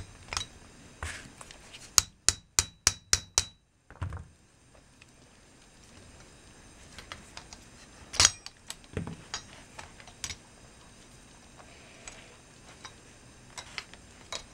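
Hammer tapping a steel pin punch to drive a splined pin out of a Meazzi hi-hat stand part on a small anvil. Six quick ringing strikes come about two seconds in, about four a second. Later there is a single sharp knock near the middle and lighter metal clinks as the parts are handled.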